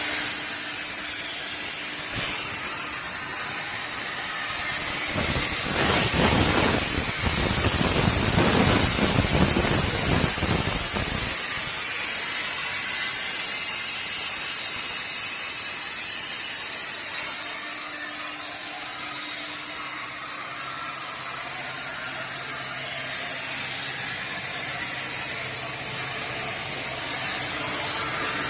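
CNC gantry plasma torch cutting steel plate: a steady high-pitched hiss from the plasma arc and its air jet. A louder, rougher crackling stretch comes from about five to eleven seconds in.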